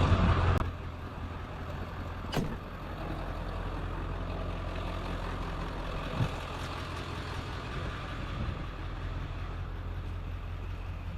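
Diesel truck engine idling with a steady low rumble. There is a sharp knock about two seconds in and a duller thump around six seconds.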